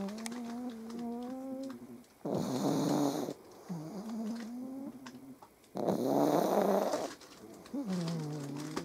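Pug dog snoring in its sleep: two rough, noisy snores about a second long, each separated by a thin whistling wheeze through the nose, repeating with each breath about every three and a half seconds.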